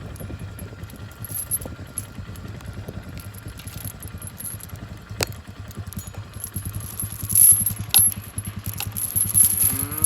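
Four-wheeler (ATV) engine idling steadily, with scattered metallic clinks and rattles. A cow starts mooing just before the end.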